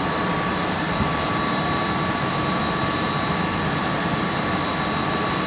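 Steady rushing drone of building ventilation machinery, with a few thin steady whines over it.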